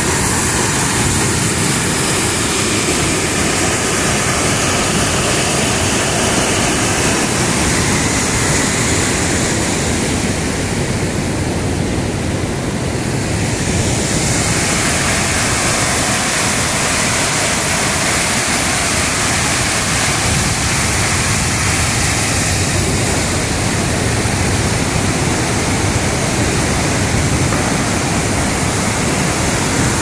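River waterfall and rapids: a loud, steady rush of churning white water.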